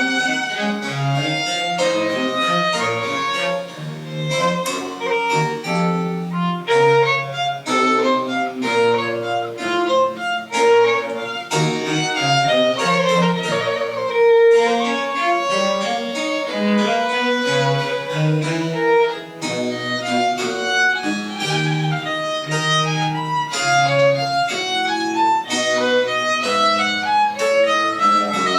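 A Baroque chamber ensemble playing French Baroque music: a violin carries a busy melody over a steadily moving bass line.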